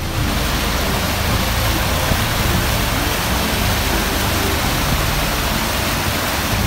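Rushing water of a small mountain creek cascading over rocks, a steady loud hiss that cuts in and cuts off abruptly.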